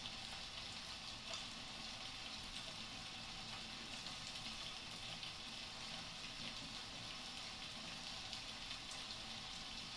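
Faint, steady crackling hiss with tiny scattered clicks, like static.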